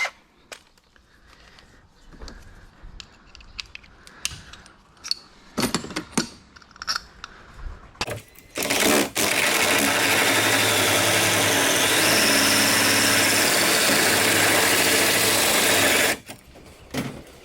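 Handheld power tool running steadily into a carbon fiber hood for about seven seconds, then stopping abruptly. Before it there are scattered light clicks and handling noises.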